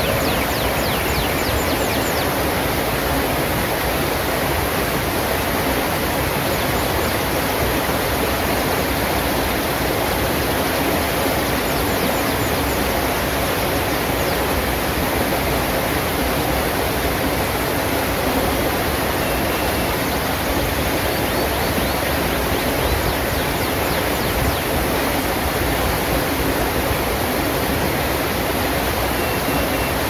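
Shallow rocky river rushing over boulders in small rapids: a steady, even rush of water.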